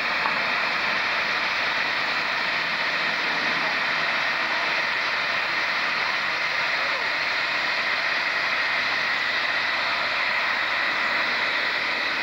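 Steam locomotive blowing off at its safety valves: a steady hiss, joined by steam venting from the open cylinder drain cocks.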